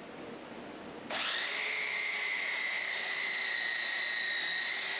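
An electric motor starts about a second in. Its high whine rises briefly as it spins up, then runs steady. It is the drive motor of a tire-grooving stand turning a dirt-track race tire.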